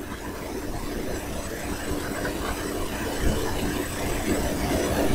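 Steady low background hum and rumble with one constant tone, a machine-like room noise between spoken lines.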